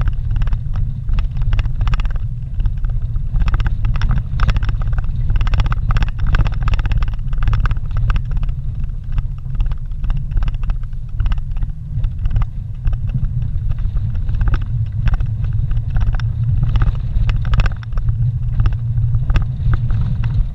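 Vehicle driving over a rough dirt road, heard from inside the cab: a steady low rumble of engine and tyres, with frequent rattles and knocks as it rides over the bumps and stones.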